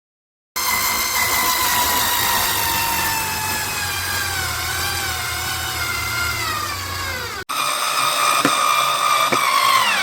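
Small electric motor of a BLACK+DECKER 4V cordless screwdriver running with a high whine whose pitch wavers and slowly sags. It breaks off abruptly about three-quarters of the way through, starts again with a couple of clicks, and winds down with a falling pitch at the end.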